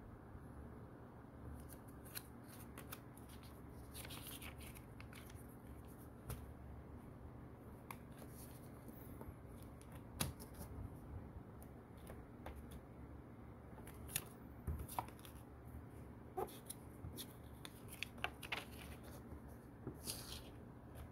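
A small paper information booklet from an iPhone box being handled and its pages flipped: quiet rustling with scattered crisp page flicks, several close together in the last third. A steady low hum lies beneath.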